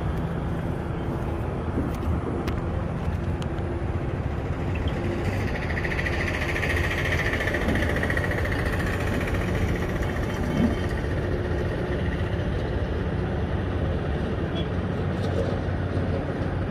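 Steady low engine hum of heavy machinery and road traffic, with a passing vehicle's hiss rising and fading between about six and ten seconds in.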